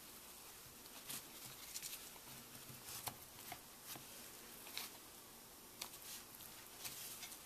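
Faint handling noise: scattered light clicks and rustles of a camera strap's webbing and plastic slide-lock buckle being worked by hand.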